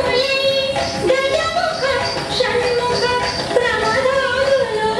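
Indian dance music: a woman's voice sings a melodic line over instrumental accompaniment.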